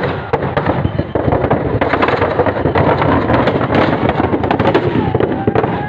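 Firecrackers packed into a burning Ravana effigy going off in a dense, rapid crackle of bangs as the fire spreads through it.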